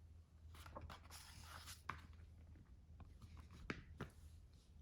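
Near silence with the faint rustle of a book page being turned and a few soft clicks.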